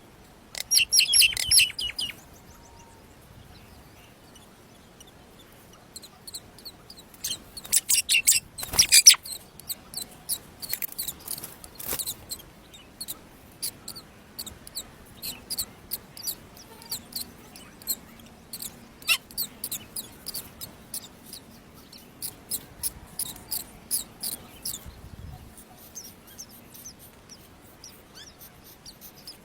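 Myna chicks in the nest giving high-pitched begging chirps as they are fed. Loud bursts come near the start and again about eight seconds in, then a long run of quicker, fainter chirps that thins out near the end.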